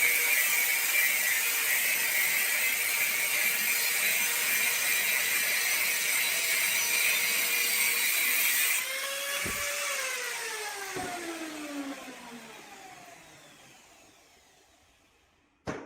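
High-speed electric power tool running with a steady high whine, switched off about nine seconds in and spinning down, its pitch falling as it fades. A sharp click near the end.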